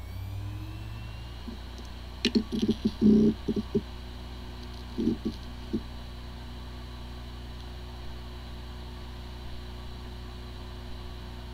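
Hard drive motor finishing spin-up with a rising whine, then a cluster of head ticks about two seconds in and a few more around five seconds, over a steady hum as the platters keep spinning. The disks spin but the drive is not accessible, a symptom that may point to corrupted disk firmware.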